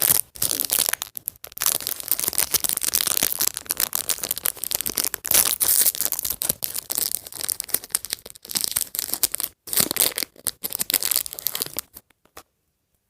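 A small plastic blind bag being torn open and its wrapper crinkled and crumpled by hand, a dense run of crackling with sharp crunches. It stops shortly before the end.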